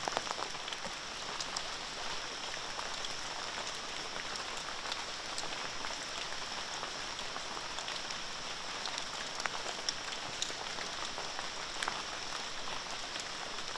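Steady outdoor hiss with scattered light ticks and a faint high hum above it, the kind of sound that rain pattering on forest leaves makes.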